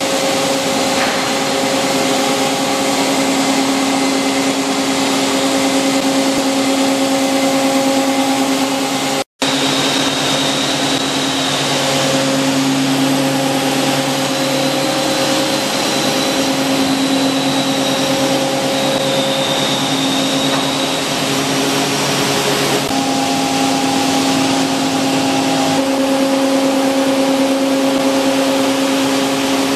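Stone continuous calibrating machine running, its high-speed diamond milling discs grinding the face of stone slabs fed on the conveyor: a steady, loud machine noise with a constant hum under it. The sound drops out for a moment about nine seconds in.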